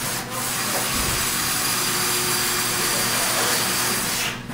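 Cordless drill running steadily for about four seconds, driving a self-drilling screw through the socket plate into the metal fixture channel, then stopping suddenly.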